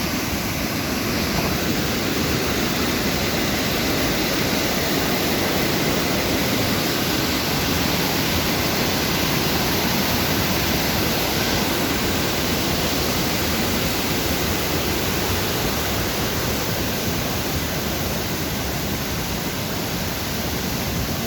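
Fast-flowing river in high water rushing steadily, a constant loud wash of water noise with no breaks.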